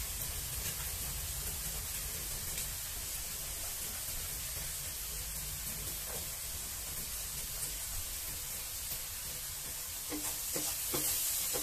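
Fried rice sizzling steadily in a wok over a gas flame, with a low steady hum underneath. A few light knocks of the wooden spatula come near the end.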